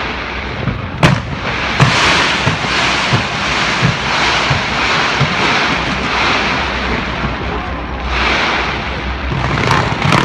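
Fireworks display going off: two sharp bangs about a second in, then a dense, continuous crackle and hiss with a steady run of thuds about every two-thirds of a second.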